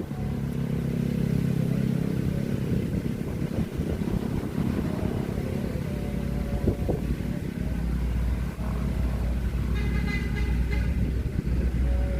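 Motor vehicle engine running, a steady low hum that gives way to a deeper rumble about halfway through.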